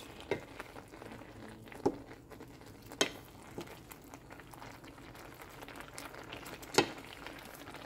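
Grated carrots simmering in milk in a steel pan, a steady low bubbling as the milk reduces, stirred with a wooden spoon. A few sharp clicks are spread through it, the loudest near the end.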